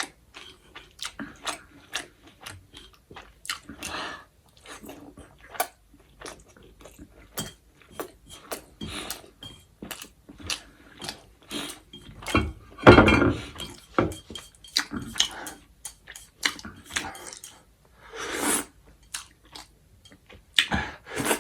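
A person chewing and biting food close to the microphone, with many short clicks of cutlery against a plate. The longest and loudest stretch of eating noise comes about thirteen seconds in, and a shorter one comes about eighteen seconds in.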